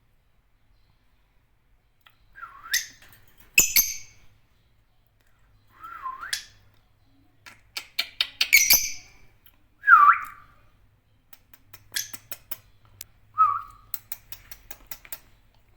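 Lovebirds (Agapornis) calling: a string of separate shrill chirps and squeaky calls that bend up and down in pitch, one every second or two, starting about two seconds in. Many short sharp clicks come between the calls in the second half.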